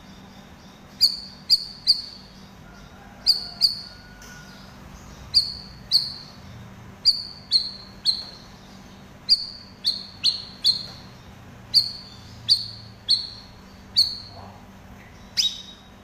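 Cucak rawis (cream-striped bulbul) calling: a chattering series of short, sharp chirps, often in twos and threes, each dropping slightly in pitch.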